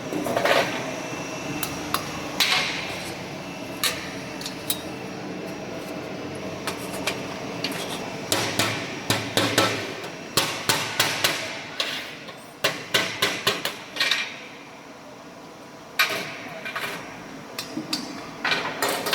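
Hydraulic round-duct elbow-forming machine working sheet-metal segments: irregular metallic clanks and knocks over a steady machine hum. A quick run of knocks comes about halfway through, and another cluster near the end.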